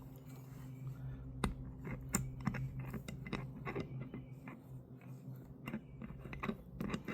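Drive gear in a Stihl HT 131 cutting-head gearbox being turned by hand through freshly packed grease: irregular small clicks, roughly two a second, as the gear picks up the grease, over a steady low hum.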